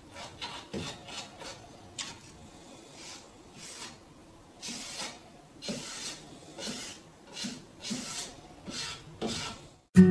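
Bristle paintbrush stroking a liquid finish onto a wooden box: a series of short swishing brush strokes, about one a second, coming more regularly in the second half. Guitar music comes in at the very end.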